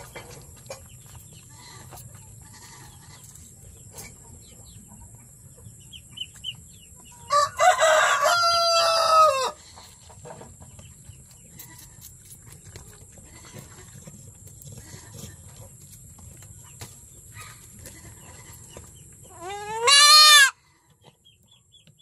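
A rooster crows once, about two seconds long, starting about seven seconds in. Near the end a goat kid gives one short bleat that rises in pitch, and faint clucking is heard in between.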